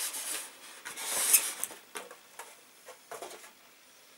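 Moulded polystyrene foam shipping case being pulled apart and handled: foam surfaces rubbing and scraping against each other in a few short scratchy bursts, the loudest about a second in.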